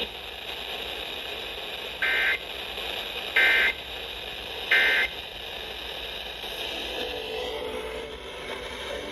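Three short bursts of Emergency Alert System end-of-message data tones, the buzzy digital squawk, about 1.3 s apart, heard through an FM radio over steady reception hiss. They signal that the weather warning broadcast has ended.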